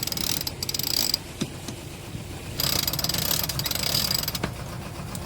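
Sailboat winch ratcheting in two spells of rapid clicking, a second or so each, as a line is hauled in under load.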